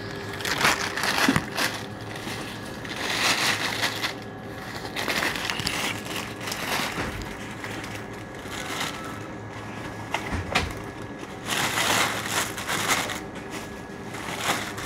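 Plastic bags and grocery packaging rustling and crinkling in several separate bursts as groceries are handled.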